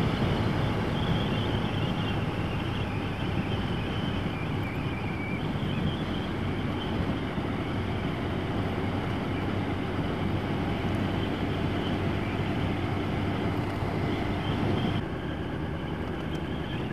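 Yamaha motorcycle running steadily at road speed, its engine mixed with wind and road rush, with a slight dip in level near the end.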